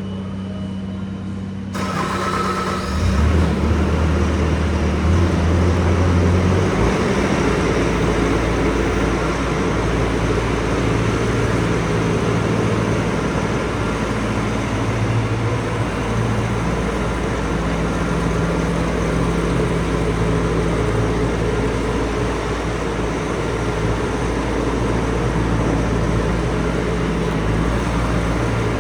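Bobcat T550 compact track loader's diesel engine running. It ticks over steadily at first, rises in speed and loudness about two seconds in, and then runs steadily at higher revs.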